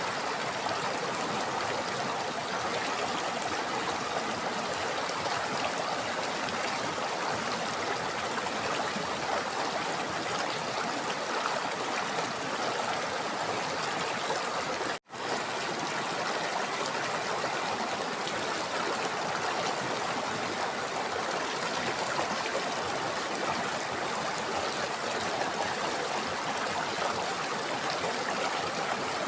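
River water flowing steadily, an even rushing hiss. About halfway through, the sound cuts out completely for an instant, then carries on unchanged.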